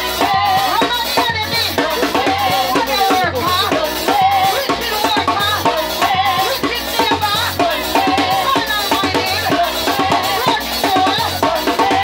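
Live band music: a drum kit keeps a steady beat under a wavering melody line, loud and continuous.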